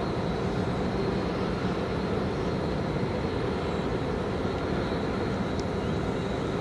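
Steady low rumbling outdoor background noise with a faint high steady whine running through it.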